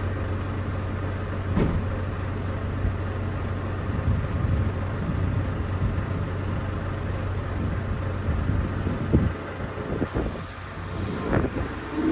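Heavy diesel engine idling steadily, with a few scattered knocks and clunks.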